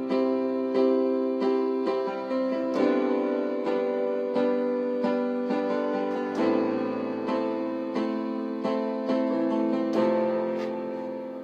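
Slow piano music: notes and chords struck at a steady pace, roughly one every two-thirds of a second, each ringing and fading before the next, with the sound dying away near the end.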